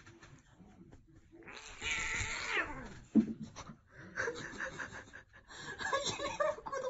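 A cat gives a long meow that falls in pitch near its end, followed by a sudden thump about three seconds in; a run of short choppy sounds follows.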